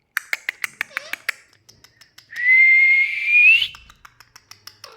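A quick run of sharp clicks, then one long whistle held on a steady pitch that rises at the end.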